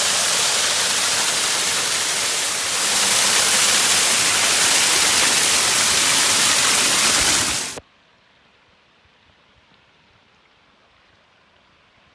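Waterfall water rushing: a loud, steady hiss of falling water that gets louder about three seconds in, then cuts off suddenly after about eight seconds, leaving only faint background hush.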